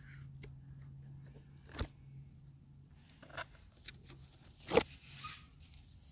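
Handling noise: a hand brushing through potted geranium leaves and stems, with a few sharp clicks, the loudest about five seconds in, over a faint low steady hum.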